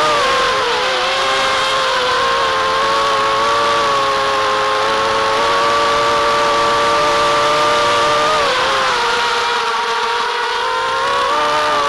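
FPV racing quadcopter's brushless motors whining in flight. The pitch dips briefly with throttle about half a second in and again at about eight and a half seconds, then climbs back up near the end.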